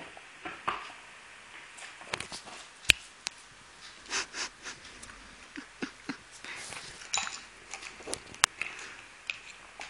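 Small dog with a pacifier in its mouth, making short sniffs and snuffles through its nose, with a few sharp clicks, the loudest about three seconds in and again near the end.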